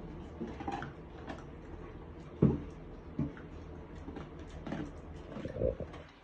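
A litter of puppies and an adult dog eating dry kibble from a metal bowl: irregular crunching and clicking, with a sharp knock against the bowl about two and a half seconds in and another shortly after.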